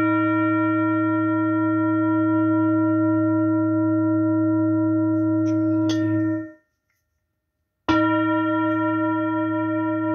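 Large hand-beaten metal singing bowl held on the palm, ringing with a low hum and several clear overtones after a strike. About six seconds in, a brief rustle comes and the ring is cut short; the bowl is struck again about two seconds later and rings on.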